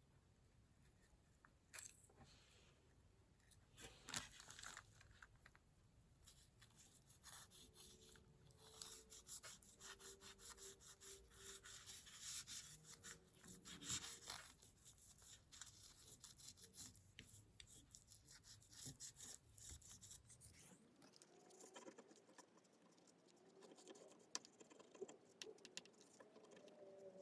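Faint scraping and rubbing with scattered clicks.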